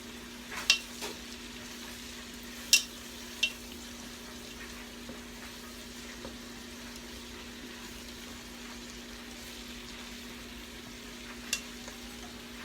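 Chicken pieces sizzling in a skillet with a steady hiss. A utensil clicks sharply against the pan four times in the first few seconds and once more near the end as the pieces are turned over.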